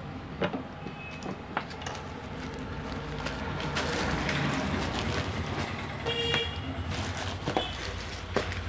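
Road traffic in the background, a vehicle's noise swelling and fading, with a short horn toot about six seconds in. A few light clicks of plastic printer parts being handled come near the start.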